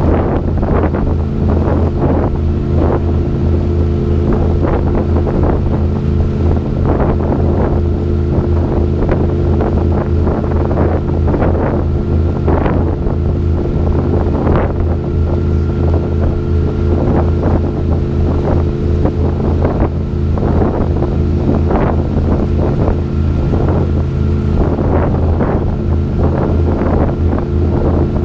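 Tour boat's engine running steadily under way, a constant low hum, with wind gusting on the microphone and the rush of the wake.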